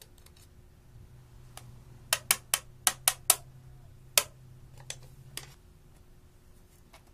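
A run of sharp clicks and taps from a metal tool striking a plastic eyeshadow palette as crushed eyeshadow is scraped out: about six in quick succession around two to three seconds in, one more a second later, then a couple of softer ones.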